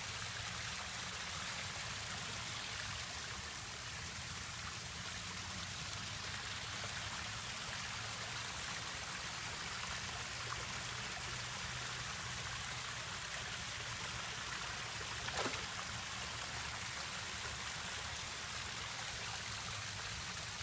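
Small garden waterfall splashing steadily over rocks into a koi pond. A single brief knock sounds about three-quarters of the way through.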